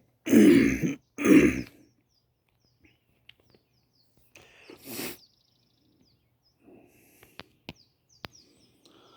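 A man coughing twice, loud and hard, about a second apart, then a softer breathy burst a few seconds later. A few sharp clicks near the end.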